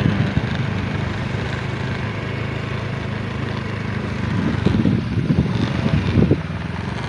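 Small motorcycle engine running at a steady pitch while riding along, with bursts of rumbling noise from about four and a half to six seconds in.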